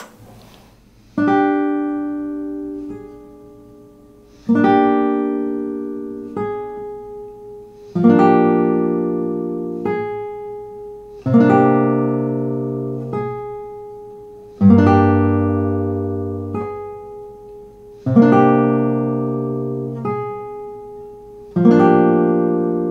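Classical guitar playing a bar-chord exercise: a barred chord struck seven times, about every three and a half seconds, each left to ring and followed by a softer single note. The chords take in more strings as it goes on, reaching lower bass notes.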